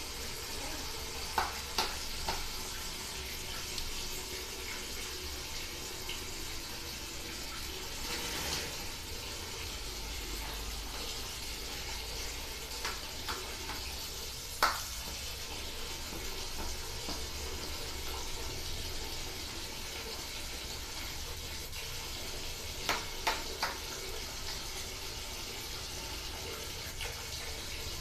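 Water tap running steadily, its stream falling into a partly filled plastic bucket, with a few short, sharp splashes and knocks of hands and a plastic mug in the water, about two seconds in, halfway through and near the end.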